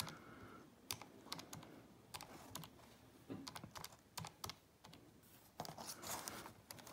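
Casio fx-82ES scientific calculator's keys being pressed one after another: faint, irregular plastic clicks as an arithmetic expression is typed in.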